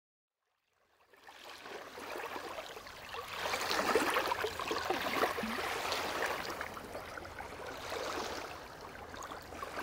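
Small lake waves lapping and washing up onto a pebbly shore, an irregular splashing wash that fades in about a second in.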